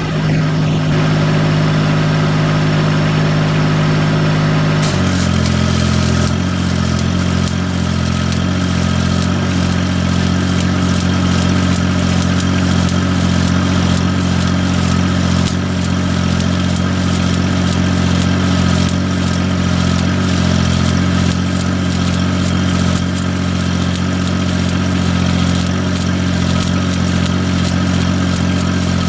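An engine running steadily, its note shifting about five seconds in, as the crackle of stick welding with 7018 rod starts and carries on irregularly.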